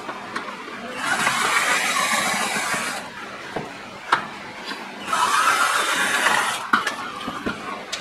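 Cordless drill-driver backing out two of a water heater's cover screws: two runs of about two seconds each, with a sharp click between them.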